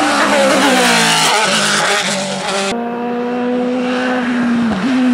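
Hillclimb racing car engines at full throttle. First a sports-prototype racing car's engine note falls as it passes. After an abrupt cut about two and a half seconds in, a single-seater's engine holds a steady high note, with a brief dip near the end.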